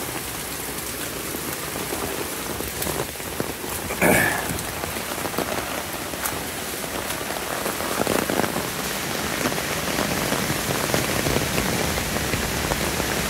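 Tropical-storm rain pouring steadily onto leaves and fallen branches, as an even hiss that grows slightly louder in the second half. A brief, sharper sound stands out about four seconds in.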